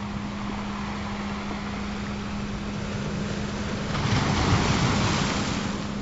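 Recorded ocean waves washing steadily, with one wave swelling and breaking about four seconds in and fading near the end. Under it runs a steady low hum, a constant healing-frequency tone.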